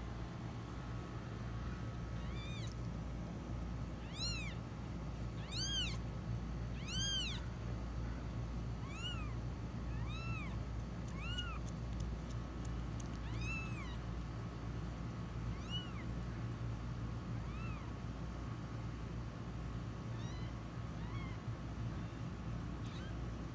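Newborn kitten mewing: a string of short, high-pitched cries that each rise and fall in pitch, about one every second or two, loudest in the first several seconds and fainter later. These are the calls of a kitten that has strayed from its nursing mother and littermates. A steady low hum runs underneath.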